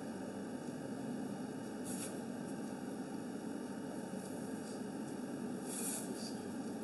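Steady background room noise with an even hiss and no speech, broken only by two faint brief sounds, about two seconds in and near the end.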